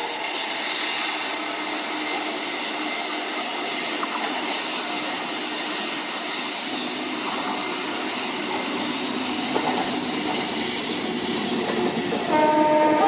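WAP-7 three-phase electric locomotive approaching and passing, a steady high-pitched whine over the running noise of the train. Near the end a two-tone horn starts to sound.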